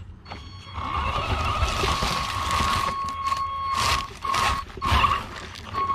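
Hosim RC truck's electric motor and gears whining as it drives, cutting out briefly a few times near the end as the throttle is let off and reapplied, over tyre crunching and rumble from the truck-mounted camera.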